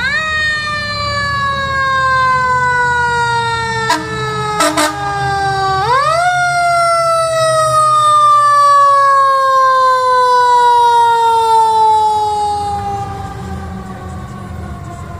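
Fire engine's mechanical siren winding up quickly and then coasting slowly down in pitch, twice, with a few short blasts in between, over the truck's low diesel engine rumble as it drives past.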